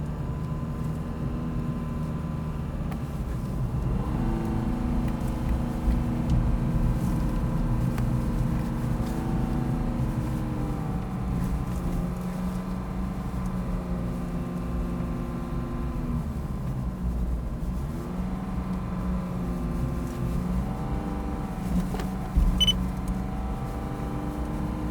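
Car engine running while driving, its pitch rising and falling several times with changes in speed, over a steady low road rumble. A short knock about twenty-two seconds in.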